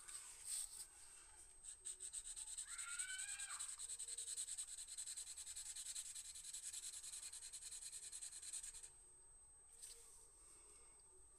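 Blending pen rubbed quickly back and forth over coloured pencil on kraft paper: a fast, even scratching that stops about nine seconds in. A brief high squeal rises and falls about three seconds in.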